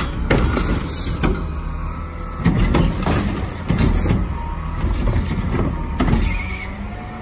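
Front-load garbage truck's diesel engine running as the automated arm on its front carry can grabs a plastic wheeled trash cart, tips it and sets it back down, with repeated clanks and knocks from the arm and cart.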